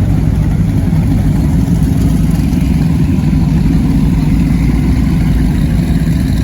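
Cigarette-style offshore powerboat engines running steadily at low speed with a loud, deep rumble.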